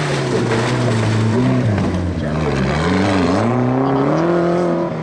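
Off-road racing car's engine revving hard under load, its pitch dipping twice about halfway through as the throttle comes off or a gear changes, then climbing again.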